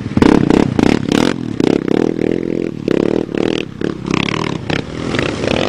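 Sport ATV engines running, with one quad revving hard as it accelerates up a steep dirt hill climb; the sound is rough and choppy.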